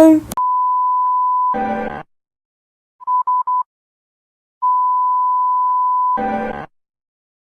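Homemade emergency alert alarm tones: a long steady beep of about a second, then a short buzzy blast, then three quick short beeps, with the pattern repeating.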